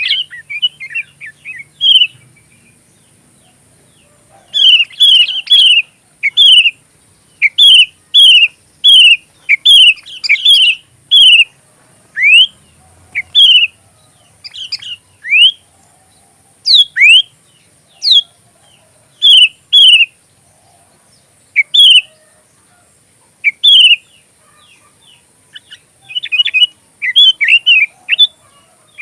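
Sooty-headed bulbul (kutilang) singing: loud, short, bright notes repeated in quick bursts, some as quick gliding strokes, after a pause of about two seconds near the start.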